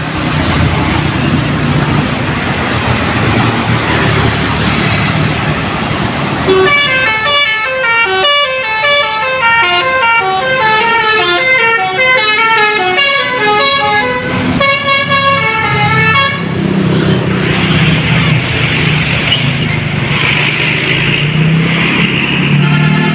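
A bus's telolet horn plays a rapid tune of stepping multi-tone toots from about six seconds in to about sixteen seconds, over the running of the bus engine and road noise.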